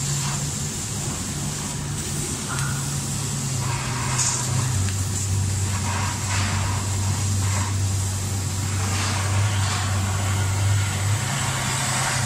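400 W gantry laser cutting machine running as it cuts a wooden board: a steady low hum that drops in pitch about five seconds in and rises again near the end, over a constant airy hiss.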